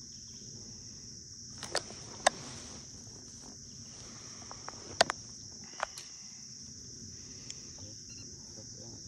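Steady, high-pitched chorus of insects such as crickets, with four sharp clicks or knocks over the top, the loudest about two and five seconds in.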